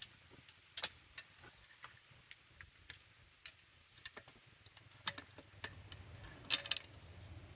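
Scattered light clicks and taps at an irregular pace from wooden parts and tools being handled on a workbench during a glue-up, with a small cluster of louder knocks about six and a half seconds in.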